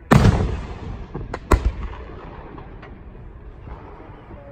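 Aerial fireworks shells bursting: a loud boom right at the start that trails off over about two seconds, then two sharp cracks about a second and a half in and a fainter pop near three seconds.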